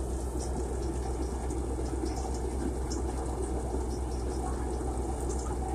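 Govind paddy thresher running steadily, driven by an Eicher 380 tractor: an even low engine throb under the rushing noise of the drum threshing paddy.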